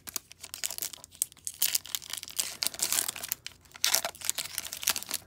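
Foil wrapper of a hockey card pack being torn open and crinkled by hand, an irregular run of sharp crackles that comes in two louder spells, around two seconds in and again around four seconds in.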